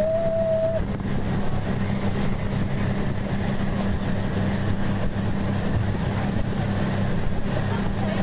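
Boat motor running steadily at low speed, a continuous low drone. A short steady tone sounds briefly in the first second.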